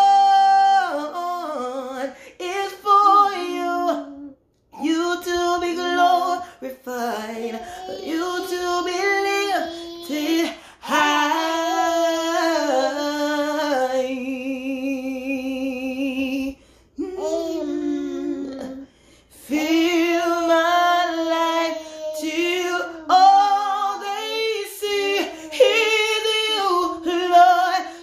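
A woman singing a worship song unaccompanied, in drawn-out phrases with short breaths between them, holding one long note with vibrato about halfway through.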